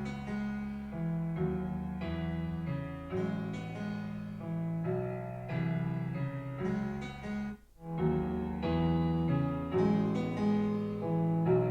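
A pop song's instrumental intro, electric piano chords over a bass line, played through a portable Bluetooth speaker and picked up by a binaural microphone. The music drops out briefly about two-thirds of the way through, then resumes.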